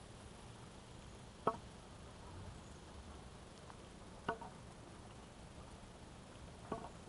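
A wooden walking stick tapping on a paved trail three times, roughly every two and a half seconds, each tap a short knock with a slight ring, over a faint steady background hiss.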